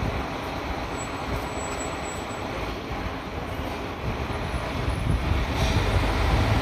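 Kashima Rinkai Railway diesel railcar pulling out of the station, its engine running with a low rumble that grows louder from about four seconds in as it accelerates away.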